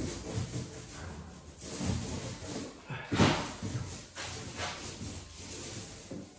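A 6.5-inch mini paint roller rolling gloss onto a door, a soft rubbing swish that comes and goes, with a sharper knock a little after three seconds.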